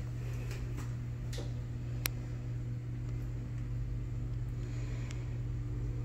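Steady low mechanical hum with a few faint ticks, the sharpest a single click about two seconds in.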